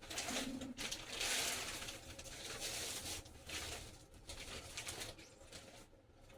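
Plastic bags rustling and crinkling as they are handled, in uneven swells, while food is repacked into a gallon zip-top bag.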